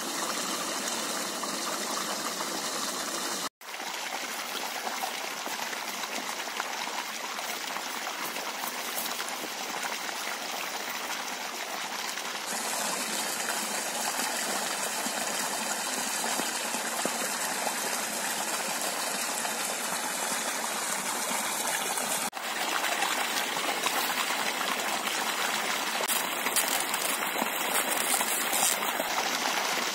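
Water gushing from an inflow pipe and splashing into a concrete trout pond, a steady rush of falling water. It breaks off for an instant about three and a half seconds in and again about twenty-two seconds in, and is a little louder after the second break.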